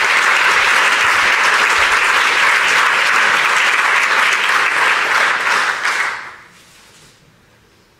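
Audience applauding steadily, dying away about six seconds in.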